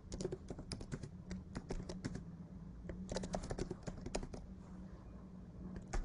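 Typing on a computer keyboard: a quick run of key clicks that thins out after about four seconds, over a faint low steady hum.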